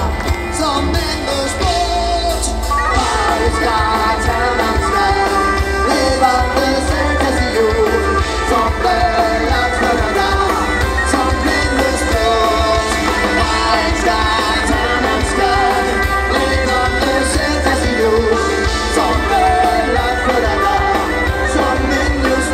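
Live medieval folk-rock played loud from the stage: bagpipes with a drum kit, guitars and heavy bass, and a singer's voice in the mix.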